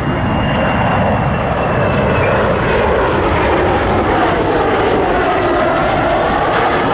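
Boeing 737-400 jet engines passing close on landing: a loud, steady rushing noise with a high whine that slides slowly down in pitch.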